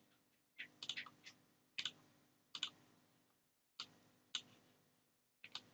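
Computer mouse clicks, sharp and irregular, scattered through otherwise near silence while a form element is being selected and dragged.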